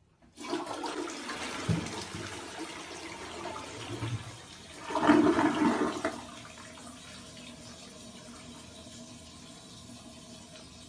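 Toilet flushing: rushing water that swells about five seconds in, then settles to a quieter steady run. A short knock comes near two seconds in.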